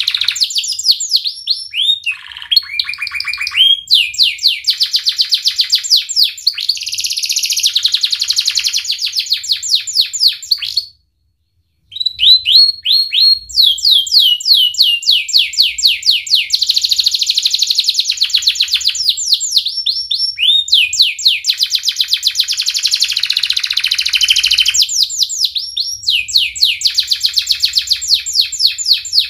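Domestic canary singing long, fast trills of rapidly repeated high notes, moving from one rolling phrase to the next, with a sudden silence of about a second about a third of the way through.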